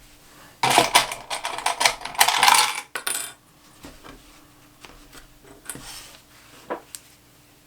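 A burst of clattering and jingling, like small hard objects knocking together, lasting about two and a half seconds, followed by a few faint clicks.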